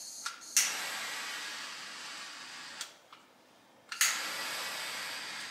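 Handheld butane kitchen torch clicked alight, its flame hissing steadily for about two seconds, then shut off with a click and, after a second's pause, clicked on again and hissing.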